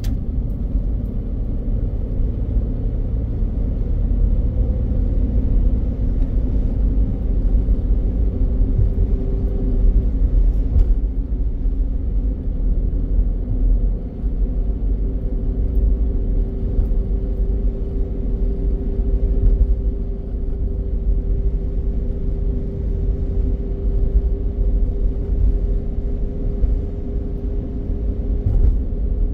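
Car driving at steady speed, heard from inside the cabin: a steady low rumble of tyres on a concrete road, with a faint hum that rises slowly in pitch during the second half.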